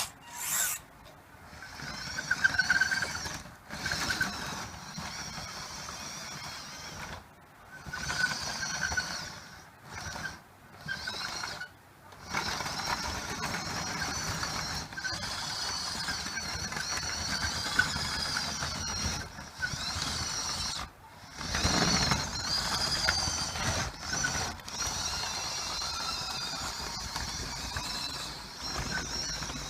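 Small electric gear motors of an RC 963 track loader model whining as they run, in short stop-start bursts at first and then more steadily, as the machine drives on its tracks and works its boom.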